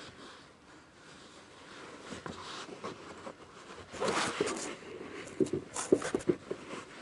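Hands working in a car interior: faint rustling, then from about four seconds in a run of irregular light clicks, knocks and rustles as parts are handled.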